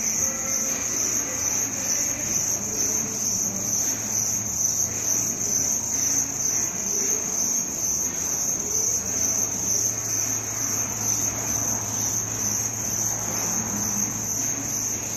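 A steady high-pitched whine over a low hum.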